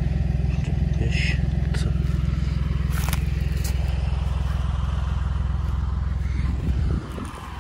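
An engine running steadily at a constant speed, dipping in loudness near the end, with a few light clicks and scuffs over it.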